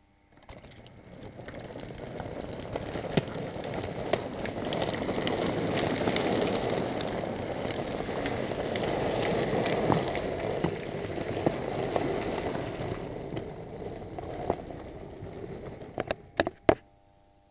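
Model railway locomotive running along the track with the camera riding on it: a steady rolling rumble of wheels and mechanism, peppered with small clicks from the rail joints. It rises over the first couple of seconds and dies away near the end, followed by a few sharp clicks.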